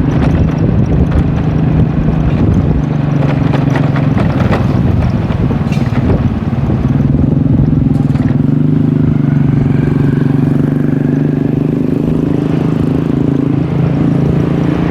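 An engine running steadily with a low hum that eases off for a few seconds near the start, with a few sharp clicks and scrapes.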